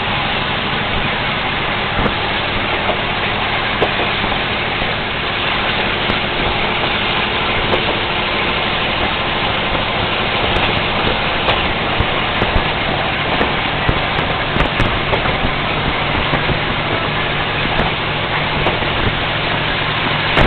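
KiHa 22-type diesel railcar under way, heard from aboard: its DMH17C straight-eight diesel engine runs steadily beneath a dense, even rush of running noise, with faint clicks now and then.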